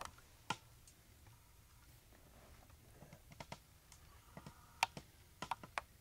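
Faint, irregular clicks and clacks, about a dozen in small groups, the loudest near five seconds in: a Crosman American Classic pellet pistol being handled and readied between shots.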